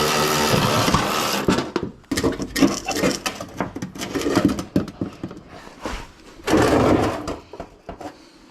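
A steady motor hum cuts off about a second and a half in, followed by irregular clicks, knocks and clanks of tools and parts being handled.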